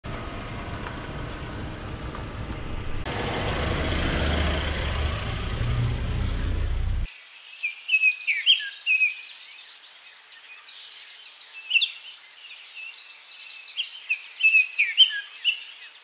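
Outdoor noise with a low rumble, which grows louder about three seconds in and cuts off suddenly. It switches at once to birds chirping and twittering in short repeated calls over a steady high buzz.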